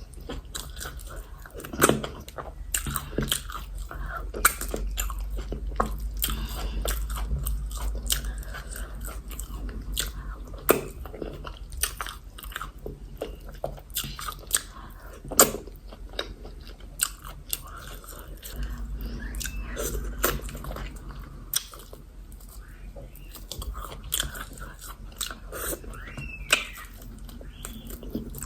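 Close-miked eating: a person chewing and biting mouthfuls of yam fufu and egusi soup, with frequent sharp wet clicks and crunches from the mouth.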